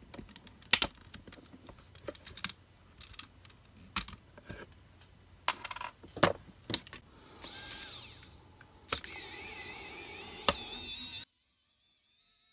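Sharp clicks and scrapes of a metal blade prying at the plastic wheel hub of an Anki Cozmo robot, followed by two stretches of high, wavering whirring. The sound cuts off suddenly about a second before the end.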